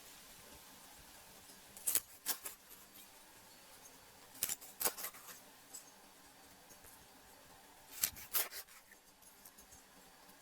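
Sharp clicks or snips, in three short clusters of two or three strokes each, about two, four and a half and eight seconds in, made while food is being prepared by hand.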